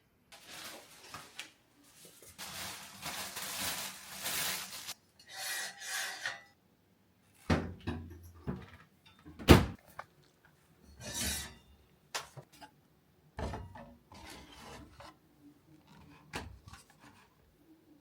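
Things being handled and moved about: a run of scraping and rubbing sounds broken by several knocks, with one sharp knock about nine and a half seconds in.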